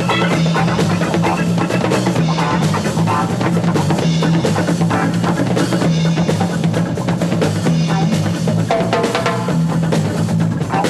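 Rock band playing live, the drum kit to the fore with percussion over a repeating bass line.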